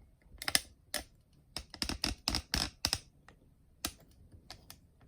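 Hands handling small hard objects: a quick series of sharp clicks and knocks, bunched in the first three seconds, with a few scattered ones later.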